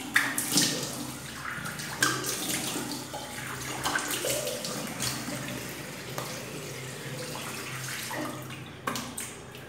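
Water splashing at a sink under a running tap as shaving lather is rinsed off the face by hand, with uneven splashes.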